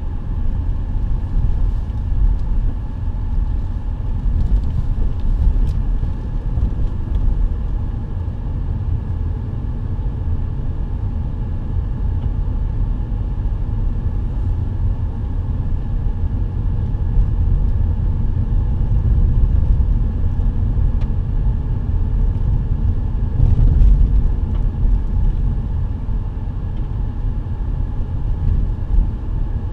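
Steady low rumble of a car driving on a dirt road, heard from inside the cabin: tyres on the unpaved surface and the engine. A few faint ticks come through, and it swells slightly about three quarters of the way in.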